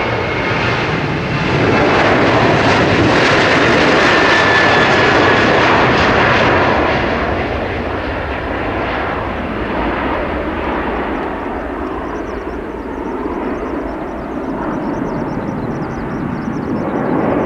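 Boeing 737-800's twin CFM56 turbofan engines at takeoff thrust: a loud jet rumble with a faint high whine, loudest about two to seven seconds in as the airliner passes on its takeoff roll and lifts off, then fading as it climbs away.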